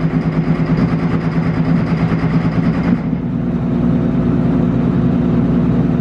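John Deere combine's diesel engine running just after a cold start, a steady loud engine note; its tone shifts about three seconds in.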